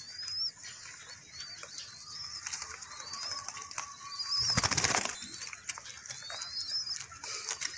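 Young zebra doves give thin, high, rising-and-falling squeaks every second or so, the begging calls of chicks being hand-fed. About four and a half seconds in, a brief burst of wing flapping is the loudest sound.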